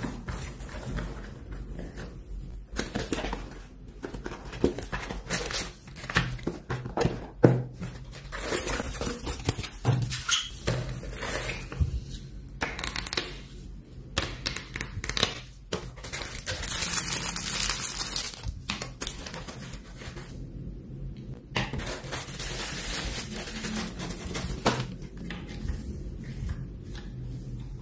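Hands unpacking a boxed mini projector: foam packing sheets and packaging rustling and crinkling, with scattered knocks and bumps as the parts are lifted out and handled. A longer stretch of rustling comes about two-thirds of the way in.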